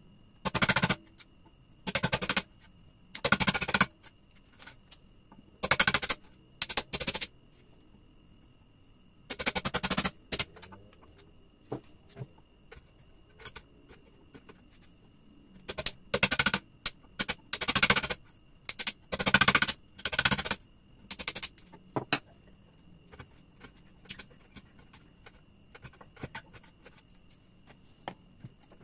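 Small ball-peen hammer rapidly tapping a wood chisel as it chops a notch into a jati belanda (pallet pine) batten. The taps come in short bursts of fast strokes, each about a second long, with a longer pause midway and only a few light taps near the end.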